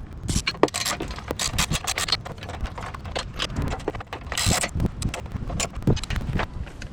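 Hand tools and metal parts clinking and knocking in quick, irregular clicks, with a longer scrape about four and a half seconds in.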